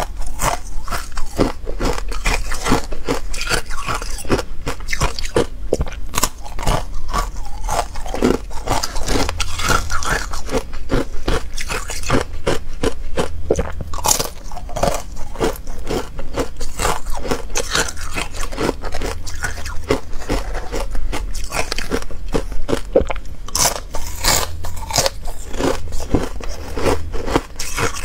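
Close-miked crunching and chewing of ice dusted with matcha powder: a fast, continuous run of crisp crunches.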